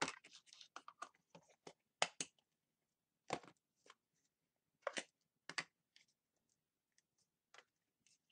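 Plastic Play-Doh tubs being handled, a series of separate light clicks and taps as they are picked up, set down and knocked together.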